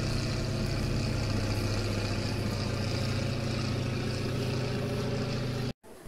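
Aircraft flying overhead: a steady engine drone with a strong low hum, cut off suddenly near the end.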